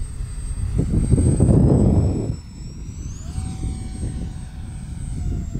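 Twin 50mm electric ducted fans of a model Boeing 737 airliner whining in flight over a low rumbling rush. The rush is loudest between about one and two seconds in. The whine climbs in pitch about three seconds in.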